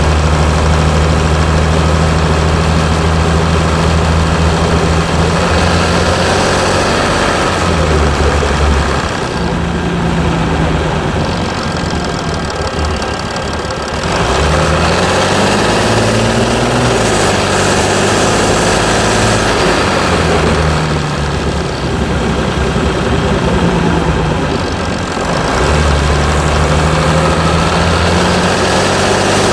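Mercedes E320 CDI's V6 diesel engine running, its pitch holding steady at first, then rising and falling several times as the engine speed changes.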